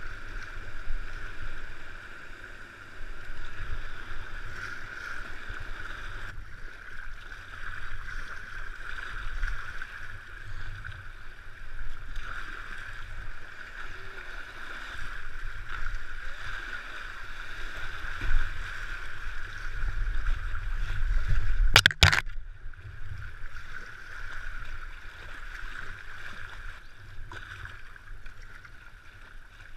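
Fast river water rushing and splashing around a plastic kayak as it is paddled downstream, over a low rumble. About three-quarters of the way through there is one sharp knock, the loudest sound.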